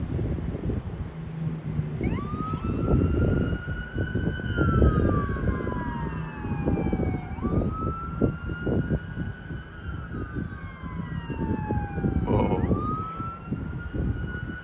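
Police boat siren wailing, starting about two seconds in: each slow rise and fall takes about five seconds, three times over. Gusty wind buffets the microphone underneath.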